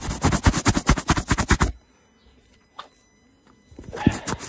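A quick run of sharp clicks and knocks from hand tools worked on the engine, lasting under two seconds. A single click follows, then a second quick run near the end.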